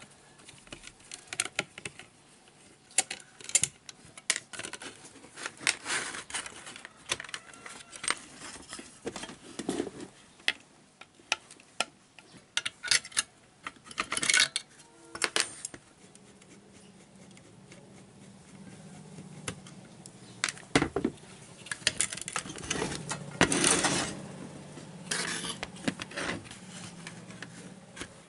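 Hand tools and small metal parts clinking, clicking and tapping irregularly on a workbench while a power-supply board is handled. About halfway through, a low steady hum starts underneath the clicks.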